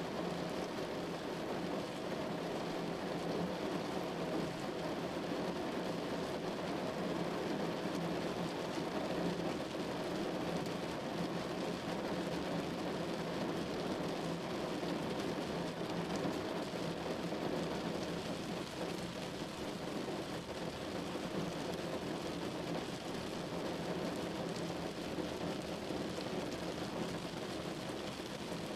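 Steady rain falling on a window pane, an even, unbroken patter.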